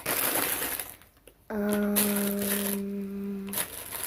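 Plastic packaging crinkling as squishies are handled, then, about a second and a half in, a steady single-pitch hum held for about two seconds before stopping abruptly.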